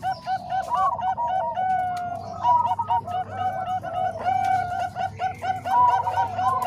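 Zebra doves (perkutut, Bangkok and cemani kolbuntet types) cooing together: a dense, unbroken run of short, repeated coo notes from several birds overlapping.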